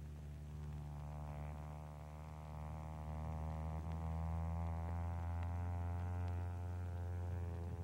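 Stearman biplane's radial engine droning steadily under power during aerobatics, its higher overtones filling in about a second in and then holding even.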